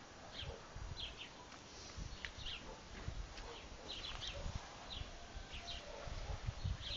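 Small birds chirping: short, high calls scattered irregularly throughout, over a low, irregular rumble.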